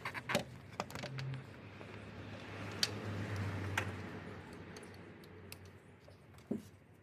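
Scattered sharp clicks and clinks of tools or parts being handled, over a low steady hum that swells about halfway through, then fades.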